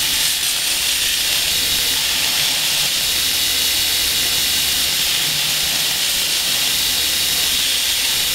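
Belt grinder running with a steel knife blade held against its abrasive belt, grinding the bevel: a steady, even hiss over a low motor hum.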